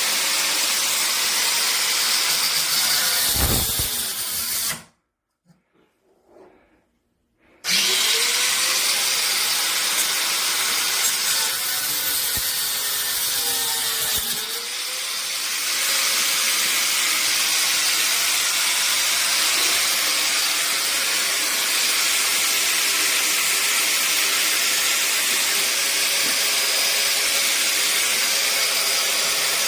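A power tool with a drill-like motor running steadily. It cuts out for about three seconds near the start, then starts again and runs on.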